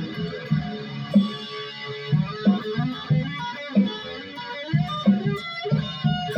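Electric guitar played solo and unaccompanied, loose noodling with single picked notes and short phrases at an uneven pace.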